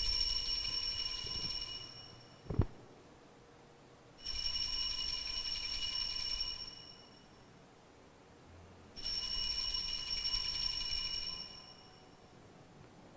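Altar bells rung three times, each a bright jingling ring of a few seconds that fades out, marking the elevation of the host at the consecration. A short soft thump comes between the first and second rings.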